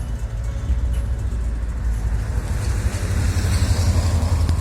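Subaru 2.5 flat-four engine in a VW Type 3, running with a low, steady exhaust rumble through an A1 muffler, growing a little louder near the end.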